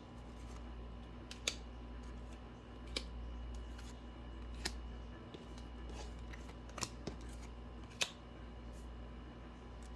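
Tarot cards being handled and laid down: a handful of sharp card snaps spaced a second or more apart, over a steady low electrical hum.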